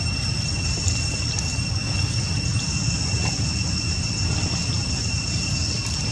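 Insects droning outdoors: an even, high whine that holds steady without a break, over an unsteady low rumble.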